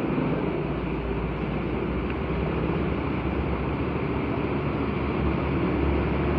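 Muddy stormwater rushing steadily into a culvert drain opening under a curb, an even rush with a low rumble and no breaks.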